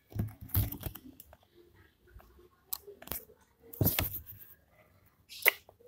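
Handling noise from a foam squishy toy squeezed and rubbed against the phone's microphone: several short bursts of rustling crackle, the loudest about half a second in and about four seconds in, with a few small clicks between.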